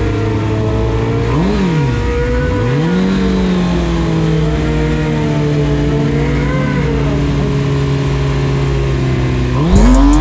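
2009 Kawasaki ZX-6R's inline-four engine at the drag-strip start line: a quick blip of the throttle up and back down, then revs held steady while waiting to launch, then revving hard and louder near the end as the bike launches on the green light.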